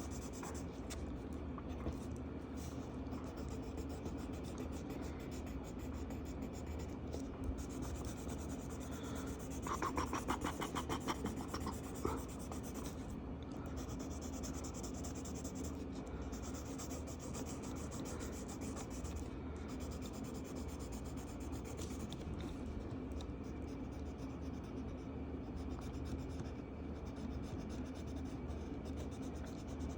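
Marker tip rubbing and scratching across paper while coloring in, with a louder stretch of quick back-and-forth strokes about ten seconds in, over a steady low hum.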